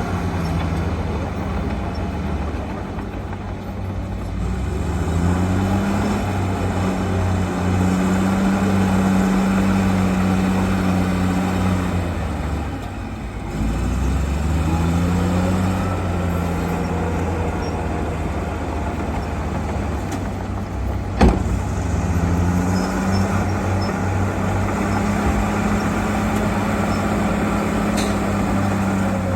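Heavy construction machine's engine working, its pitch rising, holding and falling in several long surges over a steady low rumble. There is one sharp knock about two-thirds of the way through.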